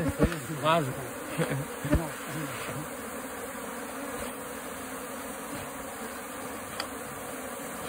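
Honeybee swarm buzzing steadily as the colony is driven out of a hollow branch with smoke, with brief faint voices in the first few seconds.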